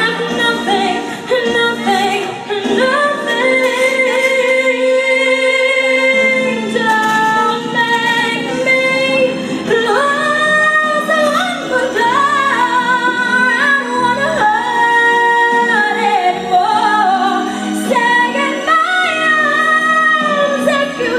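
A woman singing solo over instrumental accompaniment, belting high notes and holding long notes with vibrato.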